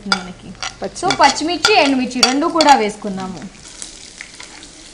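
Tempering spices sizzling and being stirred in hot oil in a kadai: mustard seeds, cumin, dried red chillies and curry leaves. A voice talks over the first part, and the sizzle stands alone for the last second or so.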